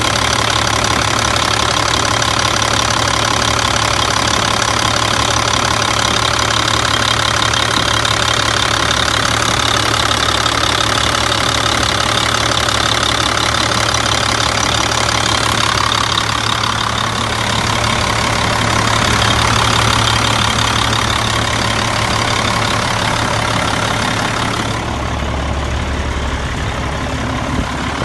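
2002 Caterpillar C12 11.9-litre inline-six diesel engine idling steadily. Near the end the sound turns duller, with a deeper low rumble.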